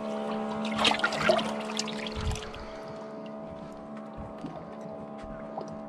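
Water sloshing and splashing in a boat's open live well as a live baitfish is grabbed from it, busiest in the first two and a half seconds, with a knock or two against the hull, over a steady hum.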